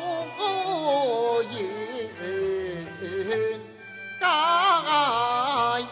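Cantonese opera singing with instrumental accompaniment: a drawn-out, melismatic vocal line with wavering pitch. It dips quietly a little before two-thirds of the way through, then comes back louder with a strong vibrato.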